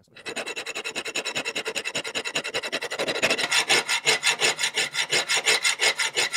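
Hand file rasping back and forth across the metal bar of a parallel jaw clamp in quick, even strokes, louder and a little slower from about halfway, then stopping abruptly. It is cutting grip into the bar where the slipping clamp's clutch should bite.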